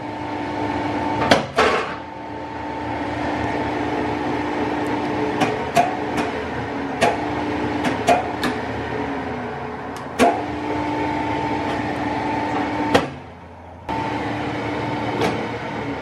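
Colchester Student lathe running under power with a steady motor hum, punctuated by repeated sharp clicks of its switch and stop controls being worked. The lathe runs on through the stop presses, because its contactor is bridged with a jumper and the stops no longer latch it off. About 13 seconds in, the hum cuts out for under a second and then starts again.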